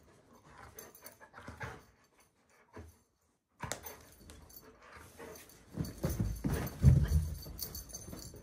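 Young golden retriever mouthing and nosing at a Santa Claus figure, with faint whimpers, rustling of blankets and fabric, and soft thuds as it moves about the bed; after a short gap about three seconds in, it grows louder, with the heaviest thuds about six to seven seconds in.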